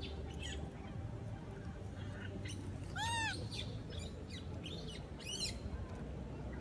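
A young macaque gives one short coo that rises and falls in pitch about three seconds in, the loudest sound here. Scattered short high chirps and a second, higher call come just before the end.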